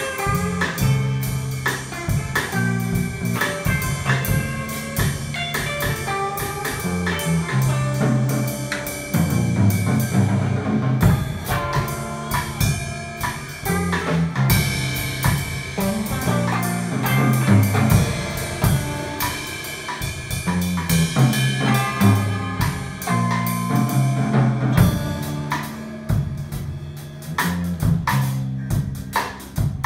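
Electric guitar and drum kit played live together: the drums keep a steady beat of kick, snare and cymbal strokes under the guitar's riffs and note runs.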